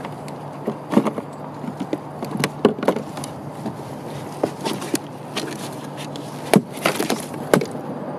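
Irregular knocks, bumps and clacks on a plastic pedal kayak's cockpit as a freshly landed coho salmon is handled in the footwell, the sharpest knocks coming a little past two-thirds of the way in.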